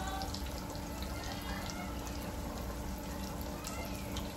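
A large pork chop, just lowered into an electric deep fryer, frying in the hot oil: a steady bubbling sizzle with scattered small crackles.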